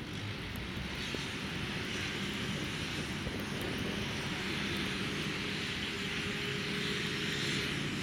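Street traffic on a slushy road: car engines running with tyres hissing through wet snow, slowly getting louder as a car draws near.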